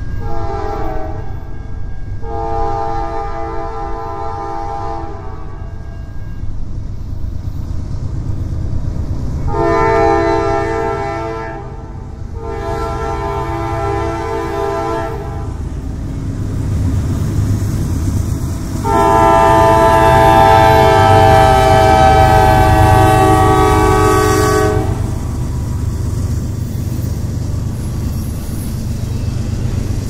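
CSX freight locomotive's multi-chime air horn sounding five blasts: a short one, three long ones, then a final long blast of about six seconds whose pitch sags slightly as the locomotives pass. Under the horn runs the heavy rumble of the GE diesel locomotives and the rolling intermodal train, loudest as the locomotives go by, with the clack of wheels over the rails.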